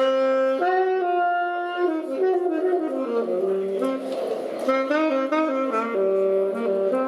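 Saxophone playing a solo melody, one note at a time, with held notes broken by quick runs of short notes.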